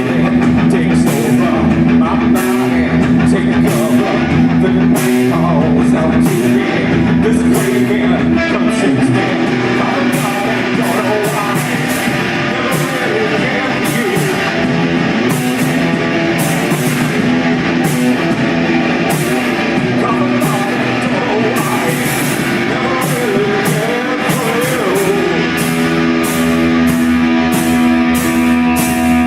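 Rock band playing live: loud electric guitar over a drum kit, with regular drum and cymbal hits.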